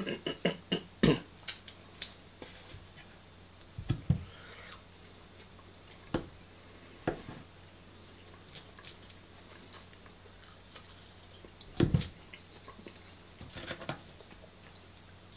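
Knife and fork clicking and knocking against a wooden serving board while food is cut and picked up. There is a quick cluster of knocks at the start and a louder knock about 12 seconds in.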